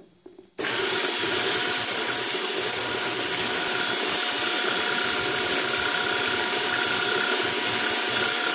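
Electric hand mixer switched on about half a second in, then running steadily at one speed with a steady high whine as its twin beaters whisk cake batter.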